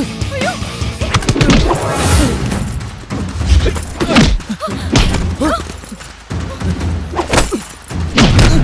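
Film fight sound effects: a rapid series of punch hits and heavy thuds, with shouts and grunts between the blows.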